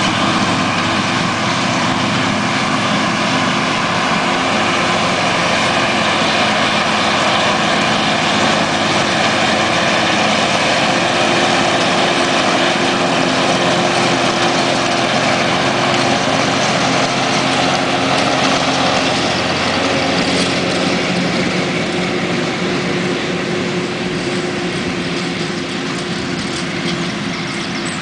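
Renault farm tractor's engine running steadily under load while it pulls a mower cutting grass for silage. The sound grows somewhat quieter over the last several seconds.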